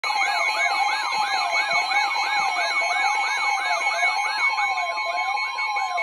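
Midland weather alert radio sounding its warning alarm for a Special Marine Warning: a siren-like whoop that rises and repeats about three times a second, over a steady tone, the NOAA Weather Radio warning alert tone.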